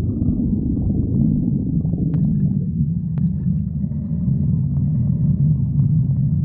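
A hungry person's stomach growling, recorded close up: a continuous deep, wavering rumble and gurgle, with two faint clicks about a second apart near the middle.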